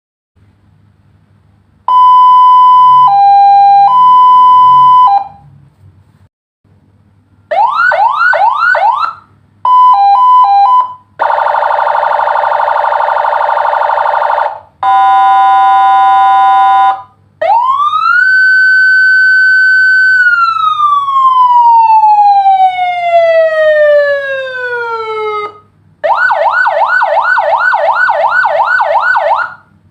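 Senken electronic siren module cycling through its tones in separate bursts. It plays a two-tone hi-lo, then a fast, rapidly repeating upward yelp and a short hi-lo, then a harsh buzzing horn and a steady horn note. A wail follows that rises, holds and slowly falls, and near the end the fast yelp returns.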